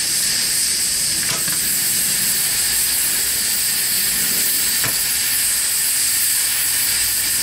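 Steam boiler's pop-off safety valve blowing off in a steady hiss: the boiler has reached the valve's lifting pressure, a little above 80 PSI.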